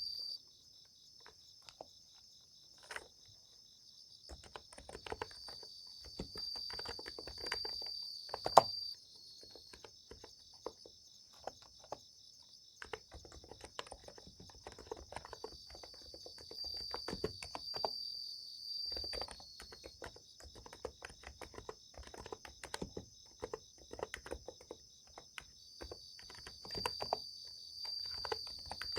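Typing on a NiZ Plum x108 electro-capacitive keyboard, keystrokes coming in bursts of a few seconds with short pauses between. Under it, a steady high chorus of summer-night insects, with a louder trill coming and going.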